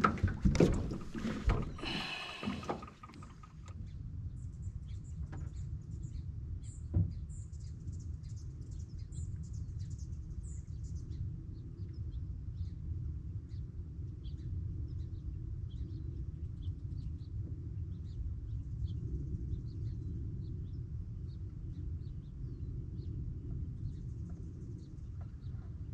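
Small birds chirping: many short, faint, high chirps over a steady low rumble. A few seconds of knocking and clattering on the aluminium boat come at the start, with one more knock about seven seconds in.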